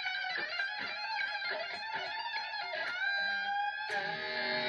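Electric guitar playing a fast shred lick of hammer-ons and pull-offs, a rapid run of notes. About three seconds in it settles on a held note, and near the end a new note is struck and left ringing.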